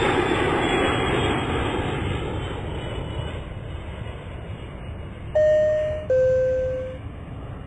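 Business jet on its takeoff roll, a steady jet engine rush fading as the aircraft moves away down the runway. About five seconds in, a loud two-note chime sounds over it, with the second note lower than the first.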